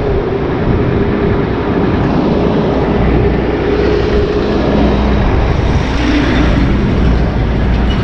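Steady traffic noise from vehicles crossing the bridge, a low rumble that swells in the middle as a vehicle goes by.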